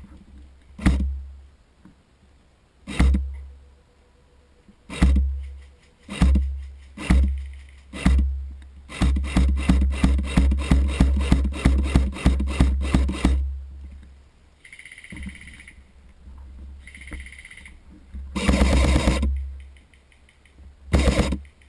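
Airsoft rifle firing: single shots a second or two apart, then a rapid string of shots for about four seconds, then a few more scattered shots near the end, each with a deep thump.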